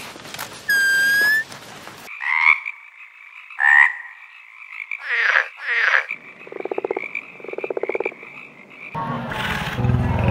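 A single clear whistled note, held for under a second, about a second in. After an abrupt change, frogs call: short chirping calls, then two pulsed, rattling croaks in a row, each under a second long. Music comes in near the end.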